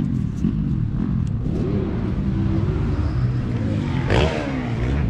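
Single-cylinder four-stroke engine of a 2023 KTM 450 SX-F motocross bike revving up and down as it is ridden, heard from a helmet camera, with a sharp burst of revs about four seconds in.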